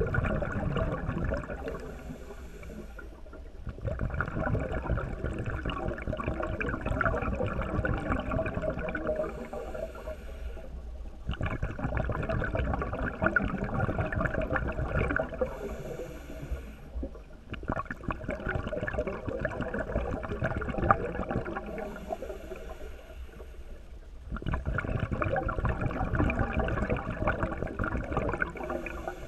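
Underwater bubbling and rushing water, heard through the camera's waterproof housing. It comes in long crackling stretches broken by short quieter gaps with a faint hiss, about every six seconds.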